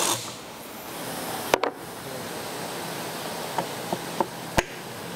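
Light, sharp metallic clicks, four of them unevenly spaced in the second half, as an aluminium clutch basket and engine parts are handled on a motorcycle crankcase. Underneath is a steady background hiss.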